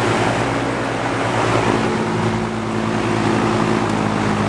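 Vintage Duralux box fan running at speed: a steady rush of air from the blades over a constant motor hum. It runs smoothly on freshly oiled shaft bearings.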